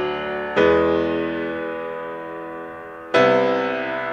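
Background music of slow, sustained piano chords. A new chord is struck about half a second in and another near the three-second mark, each ringing on and slowly fading.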